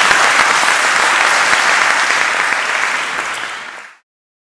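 Audience applauding, a dense, steady clapping that fades out and stops near the end.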